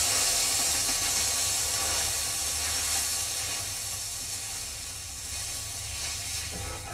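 Steam hissing off a hot flat iron griddle as it is swept with a bundle of twigs, with a scratchy scrubbing texture. The hiss gradually dies down.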